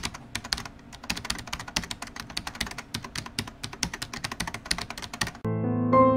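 Intro sound effect of rapid, uneven clicks, about ten a second, like typing. About five and a half seconds in the clicking stops and soft piano music begins.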